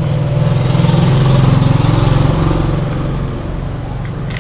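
A motor vehicle's engine running with a steady low hum, growing louder about a second in and fading again after two seconds as it passes by. A short click near the end.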